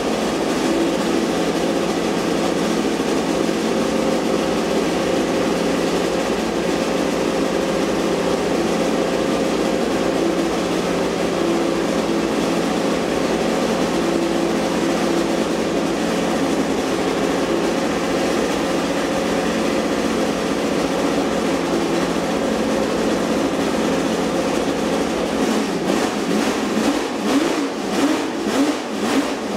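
Honda 1960s Formula One V12 engine running at a steady idle, then blipped several times near the end in short revs.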